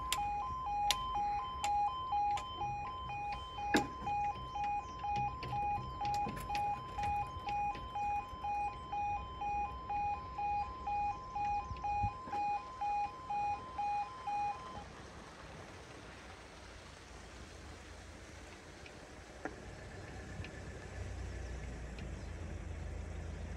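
Railway level crossing warning alarm beeping a two-tone pulse about twice a second, which stops about fifteen seconds in; after it a low rumble builds near the end.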